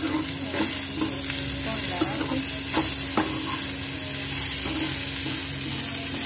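Chopped onions, tomatoes and green chillies sizzling in hot mustard oil and butter in a frying pan, stirred with a steel spatula that scrapes and taps against the pan about once a second.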